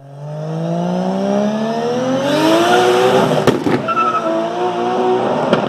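A car engine accelerating, its pitch climbing steadily for about three seconds, then a sharp click and a short tyre squeal.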